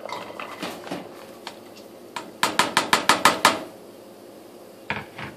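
Chopped onion tipped from a bowl into an empty stainless steel pot, landing softly, then a quick run of about eight sharp clinks of the bowl knocking against the steel pot, and two more knocks near the end.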